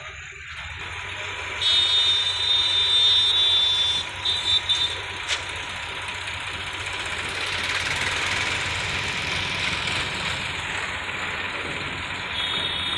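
Sonalika tractor's diesel engine running as its hydraulic tipper raises the trailer bed to dump a load of soil. A loud high-pitched whine sounds for a couple of seconds early on, returns in short bursts and again near the end, and a swell of rushing noise in the middle fits the loose soil sliding off the tipped bed.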